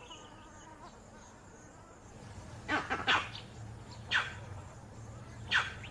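Vervet monkeys giving alarm calls, about four short sharp barks in the second half, raised at the sight of a leopard.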